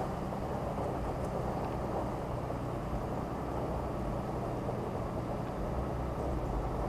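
Ram 2500's 6.7 L Cummins turbo-diesel and drivetrain running steadily at a slow crawl, a low even rumble with rushing noise over it, picked up by a camera mounted outside on the truck.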